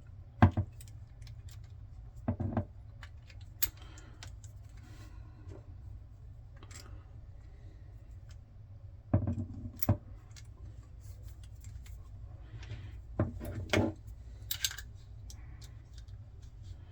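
Metal parts of a Paclock 90A-Pro padlock clicking and knocking as it is handled and fitted back together, in scattered clusters of sharp clicks. A low steady hum runs beneath.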